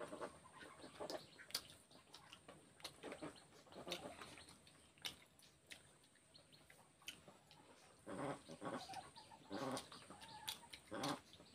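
Close mouth sounds of eating rice and curry by hand: chewing and lip smacks as a string of short soft clicks. From about eight seconds in, several short pitched calls, the loudest sounds here, come a few times.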